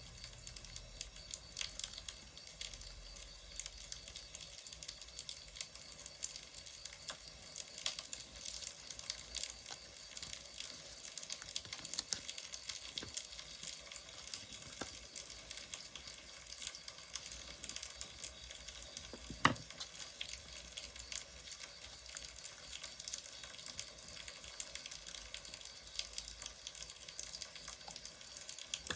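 Wood fire crackling: a steady hiss with frequent small pops and one sharper snap about two-thirds of the way through.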